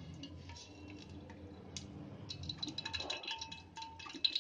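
Mustard oil trickling from a bottle onto a ladle inside a pressure cooker, faint, with light clicks and ticks that grow busier in the second half as the ladle knocks against the pot.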